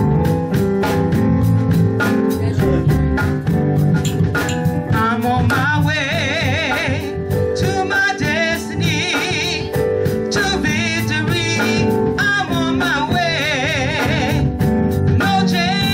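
Church gospel vocal group singing into microphones over band accompaniment with a steady drum beat. The voices, with heavy vibrato, come in about five seconds in after an instrumental opening.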